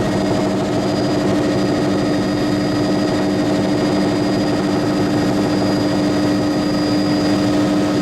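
Helicopter running steadily in flight, a constant loud drone that stays level throughout.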